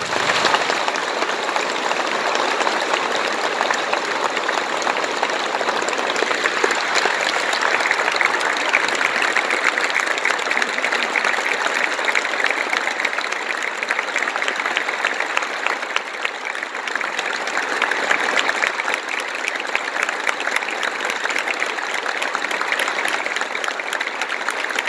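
A large audience applauding, a dense steady clapping that starts abruptly and holds without letting up.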